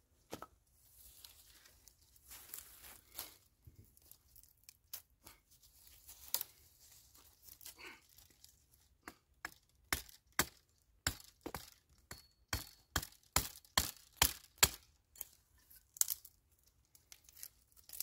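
Dry sticks and twigs being handled and snapped by hand: soft rustling of wood and grass at first, then a run of sharp cracks, about one or two a second, through the second half.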